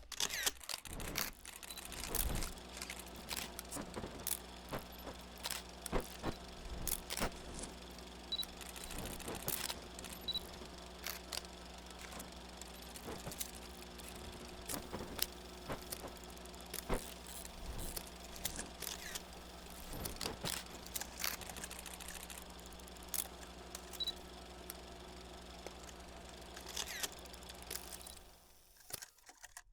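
Super 8 film projector sound effect: a steady mechanical running hum with irregular crackles and pops of old film, fading out near the end.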